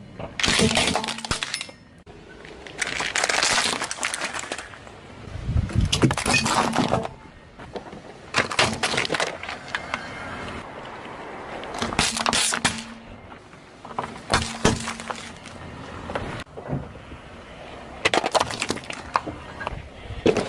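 A car tyre crushing one object after another on asphalt, among them a plastic toy xylophone and plastic pudding cups. Plastic cracks and snaps in a string of separate crunches, one every two or three seconds.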